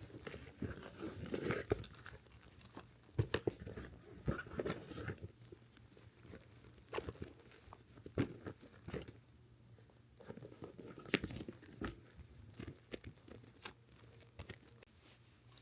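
Handling noise from a handbag being emptied and its things moved to another bag: irregular rustling with scattered sharp clicks and knocks.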